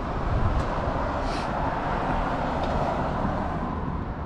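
Steady road traffic noise, with a few faint ticks and a brief hiss about a second and a half in.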